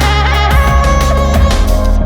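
Background music with heavy electronic bass, a beat and a melody line.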